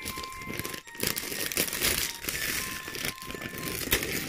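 Gift-wrapping paper crinkling and rustling in irregular crackles as a small child's hands grab and pull at a wrapped present.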